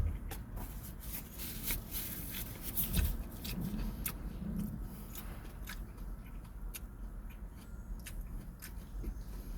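Close-up chewing of a fast-food burger: many sharp, wet mouth clicks and crunches, irregular, over a steady low rumble.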